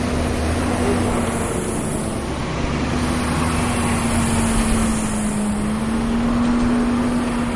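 Tractor-trailer semi-truck passing close by: steady engine drone with tyre and road noise.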